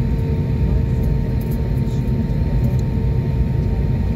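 Jet airliner heard from inside the cabin while rolling on the ground: a steady low rumble with a steady engine hum over it.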